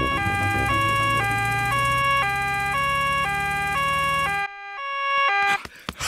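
Cartoon ambulance's two-tone siren, switching between a high and a low note every half second. A low hum runs under it and drops out about three-quarters of the way through. The siren stops just before the end.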